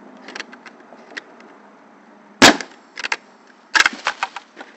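Pneumatic nail gun firing into a wooden fence board with one sharp, loud crack about halfway through, followed near the end by a quicker cluster of sharp clicks and knocks.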